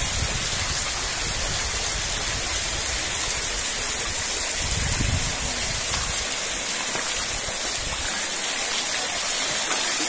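Steady rush of a flowing mountain river, with a couple of brief low rumbles on the microphone near the start and around five seconds in.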